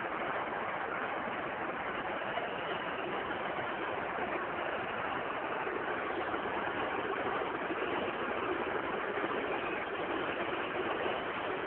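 Football stadium crowd noise: many voices from a packed stand blending into one steady wash of sound.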